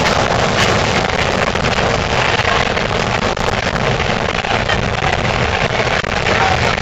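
Steady, loud din of a large outdoor protest crowd, many voices blurring together with no single word standing out.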